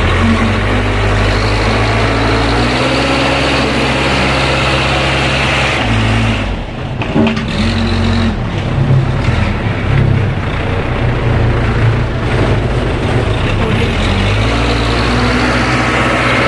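Heavy vehicle engine running steadily, its note dipping and wavering for several seconds in the middle before settling again.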